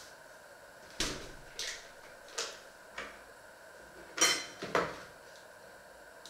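Kitchen dishes and utensils being handled on a worktop: about six separate knocks and clinks, the loudest a short ringing clatter of crockery a little over four seconds in.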